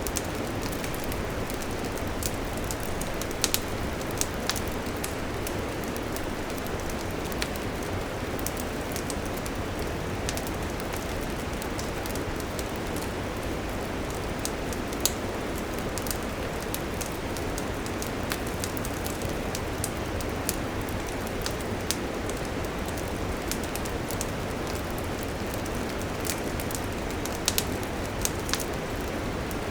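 Wood campfire burning: a steady hiss, with scattered sharp crackles and pops at irregular moments.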